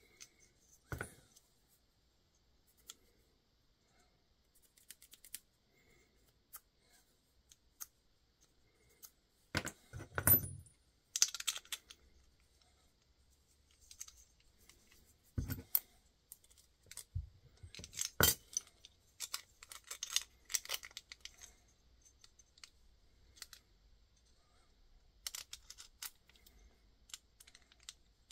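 Small metal hardware being handled and set down on a work mat: scattered clinks and clicks of threaded rods, nuts and a wing nut, with a few louder knocks about 10 and 18 seconds in.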